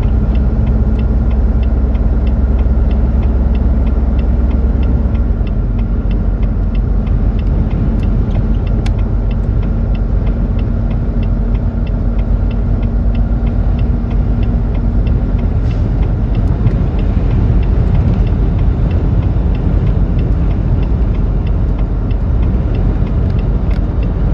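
Blizzard wind gusting at around 60 mph and buffeting the microphone: a loud, steady low rumble, with a faint regular ticking about three times a second behind it.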